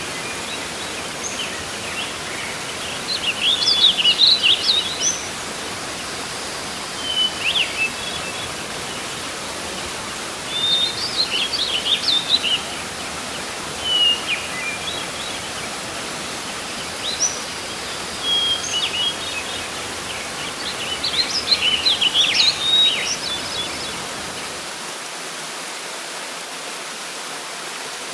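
Steady rush of a waterfall, with a songbird singing short bursts of quick chirping phrases every few seconds.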